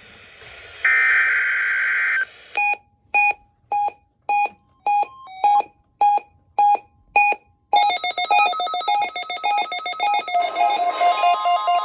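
The last SAME data burst of an Emergency Alert System header, a harsh buzzing burst, ends about two seconds in. Nine short electronic beeps follow, about half a second apart. Then comes a fast electronic alarm pattern of stepping tones, and about ten seconds in the steady 1050 Hz NOAA Weather Radio alarm tone joins it for the weekly tone alarm test.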